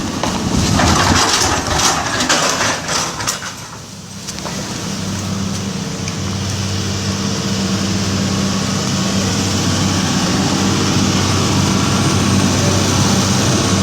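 Heavy diesel engine of an excavator under load, with clanking and knocking for the first few seconds; it dips briefly about four seconds in, then settles into a steady run.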